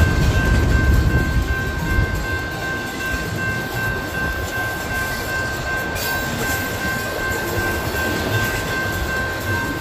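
Double-stack container well cars of a freight train rolling past a grade crossing: a steady low rumble and wheel noise. The crossing's warning bell rings over it throughout as steady high tones.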